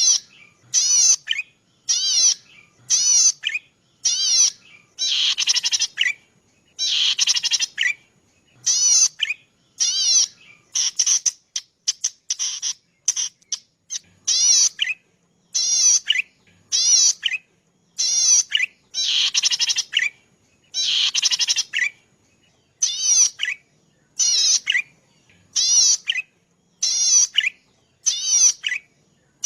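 Cici padi (prenjak padi) calling: a steady series of short, buzzy, high-pitched notes with a fast wavering pitch, about one a second, a few drawn out to nearly a second.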